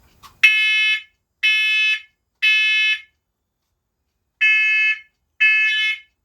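First Alert talking smoke alarm sounding its test alarm: loud, high-pitched beeps in sets of three, a pause, then the next set starting. This temporal-three pattern is the standard smoke-evacuation signal.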